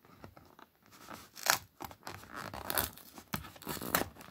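Plastic blister packaging and cardboard backing of a toy-train package crackling and tearing as it is worked open by hand, with irregular crinkling and several sharp cracks.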